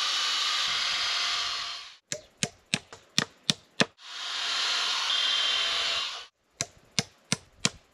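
Cordless drill boring into a wooden stump, running steadily in two spells of about two seconds each. Between the spells and after the second, a quick run of sharp clicks, several a second.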